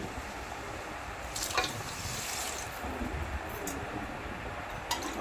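Water poured from a steel tumbler into pressure cooker pots of sautéed mutton, tomato and spices, the stage of adding water before pressure-cooking. The pour is strongest about a second and a half in, with a few light clicks.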